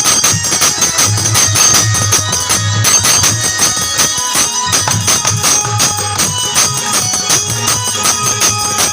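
Indian folk wedding-song music: fast, steady hand percussion with jingling strokes over a sustained melodic accompaniment, with no singing standing out.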